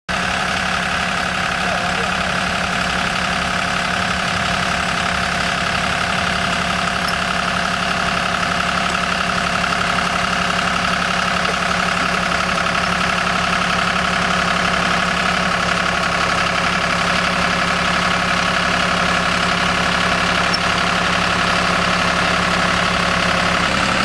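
John Deere tractor's diesel engine running steadily as it pulls a tractor-mounted potato digger through a potato row.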